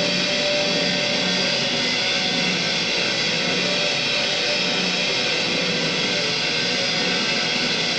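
Steady, unchanging mechanical noise: an even rush with a faint underlying hum, like a machine or engine running continuously.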